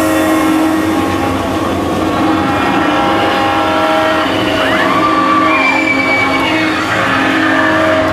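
Loud special-effects soundtrack of a theme-park ride's simulated subway earthquake: a continuous rumbling roar under several steady held tones, with screeching sweeps rising and falling about five to six seconds in.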